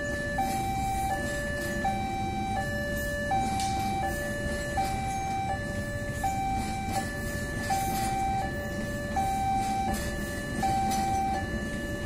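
Railway level crossing alarm sounding a repeating two-tone electronic chime, a higher and a lower note alternating about every 0.7 seconds, over the steady rumble of a passing passenger train.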